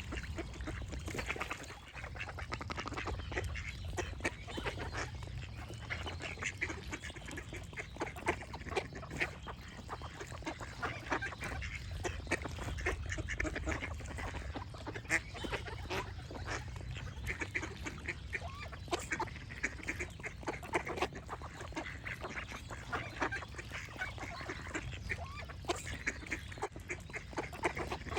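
Ducks quacking over and over, many short calls packed close together, over a steady low rumble.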